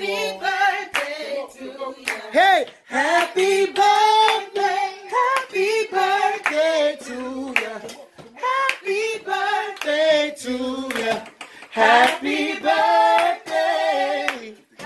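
A group of adults and children singing together with frequent hand clapping.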